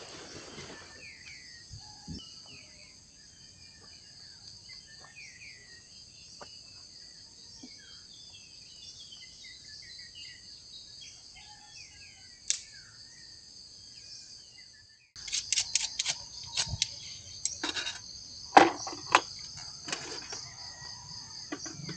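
Steady chorus of insects with birds chirping now and then. About fifteen seconds in, close clicks and knocks start, a person handling gear at a camp stove.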